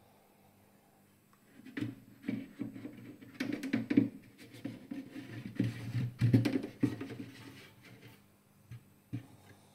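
Irregular knocks and light rattling as a hand handles a steel hanging rod and the cured hams hanging from it inside a cabinet. The knocks are loudest in the middle, with two faint taps near the end.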